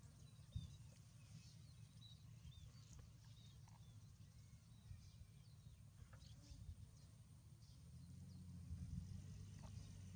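Near silence: faint outdoor background with a low rumble, a thin steady high tone, and scattered faint high chirps throughout.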